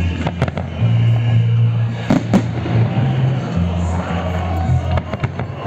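Salute fireworks bursting overhead with several sharp bangs: a pair near the start, two louder ones about two seconds in, and a quick cluster near the end. Music with deep, sustained bass notes plays throughout.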